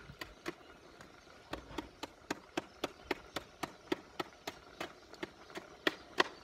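Knife chopping vegetables on a cutting board, with even strokes at about four a second; the strokes near the end are the loudest.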